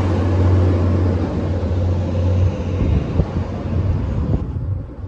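Northern Ireland Railways CAF-built diesel multiple unit pulling past along the platform, its underfloor diesel engine giving a steady low drone. About halfway through the drone weakens and the sound fades as the train moves away.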